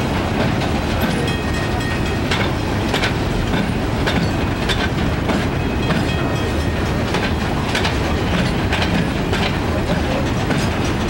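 Covered hopper wagons of a freight train rolling past close by: a steady rumble of wheels on rail, with sharp clacks over the rail joints coming at an uneven pace, about one or two a second.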